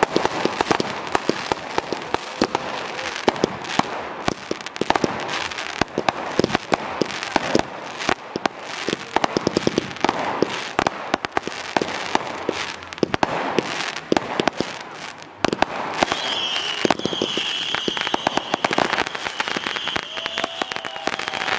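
Class C consumer fireworks going off in quick succession, a dense run of sharp cracks and bangs as shells launch and burst. A high, slightly wavering whistle joins about three-quarters of the way through and holds to the end.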